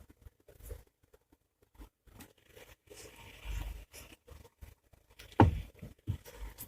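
Scattered knocks and scraping from a Chery Tiggo 7's steering column as the steering wheel is turned, with one sharp, loudest knock about five and a half seconds in. The knock comes from the electric power steering unit, a rare fault that misleads suspension diagnosis.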